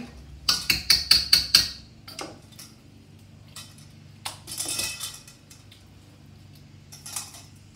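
Wire whisk beating a thick yogurt marinade in a stainless steel mixing bowl: about seven quick metallic strokes in the first two seconds. Then softer, scattered wet sounds and clicks as raw chicken pieces are dropped into the marinade.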